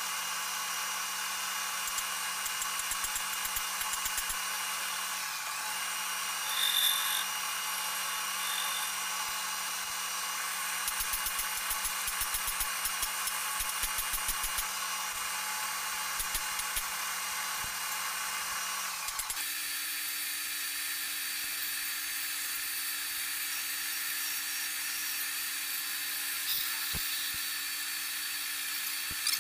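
Manual metal lathe running with a steel shaft spinning in its chuck: a steady motor hum over a constant hiss. About two-thirds of the way in the hum changes abruptly to a different, higher steady tone.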